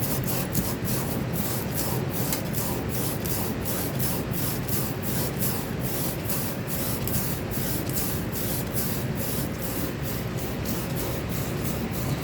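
Copper pipe end being scrubbed by hand with an abrasive, in quick back-and-forth strokes, about three or four a second, to clean the pipe around a solder blob. A steady low hum runs underneath.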